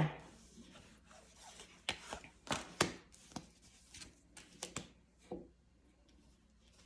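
Tarot cards being handled on a table: a run of soft taps, flicks and rubs, about a dozen in all, between about two and five and a half seconds in.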